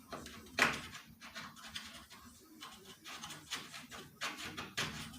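Hand deburring tool scraping around drilled holes in aluminium sheet: a run of short light scrapes with a few sharper clicks, the loudest about half a second in and twice near the end.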